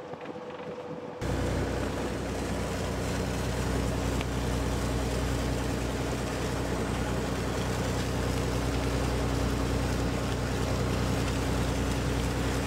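A fishing boat's engine running steadily under way, a low even drone, with water rushing and splashing along the hull. The sound cuts in suddenly about a second in, after a quieter stretch of wind and sea.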